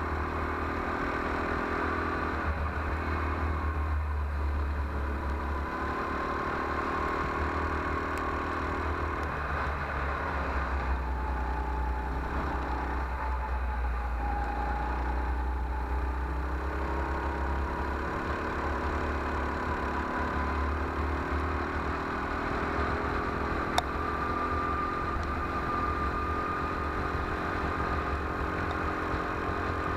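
Go-kart engine running under the onboard camera, its pitch rising and falling with the throttle through the corners, over a steady wind rumble on the microphone. A single sharp click a little past the middle.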